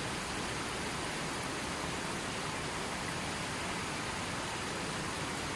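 Fast-flowing stream with a strong current, its water rushing steadily and evenly.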